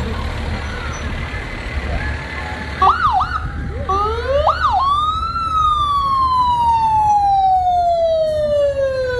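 Emergency vehicle siren over the low rumble of vehicle engines: two short whoops, rising and falling, about three and four and a half seconds in, then one long wail that slowly falls in pitch until the end.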